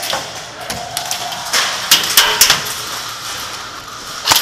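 Several sharp snaps and knocks, a cluster of them in the middle and one more near the end, over the rustle of a player moving with gear during an airsoft game.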